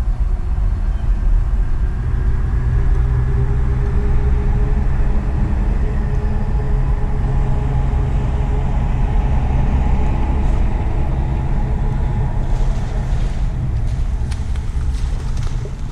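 Steady low rumble of wind on the microphone, with a faint motor whine that drifts slowly in pitch. Near the end come a handful of short sharp clicks while a bass is fought on the rod.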